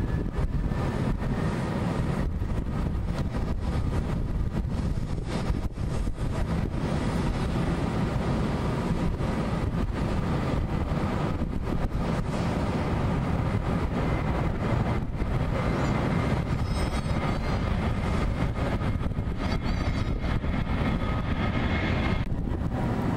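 Jet engines of taxiing airliners, an Airbus A321 among them, running at low taxi thrust: a steady rumble with a faint turbine whine.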